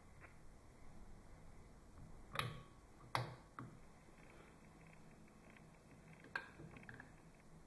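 Four light, sharp clicks in a quiet small room: two a little under a second apart, a softer one just after them, and another near the end.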